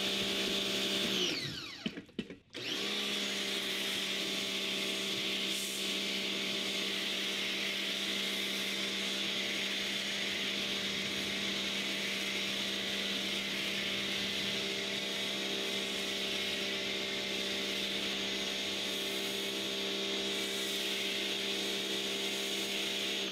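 Rock&Rocker electric pressure washer's motor and pump running with a steady whine under the hiss of the spray. About two seconds in it winds down and stops briefly, then starts again and runs steadily while spraying through a snow foam cannon.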